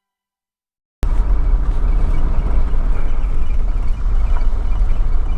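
A vehicle driving, with a steady low rumble of road and engine noise that starts abruptly about a second in.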